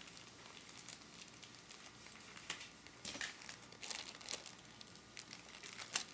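Packaging being handled and crinkling: faint scattered crackles and rustles that become busier and louder about halfway through.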